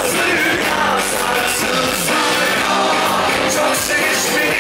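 Live Turkish pop concert: a male lead singer with a band of keyboards and drums and backing vocalists, played loud through the venue's sound system and heard from the crowd.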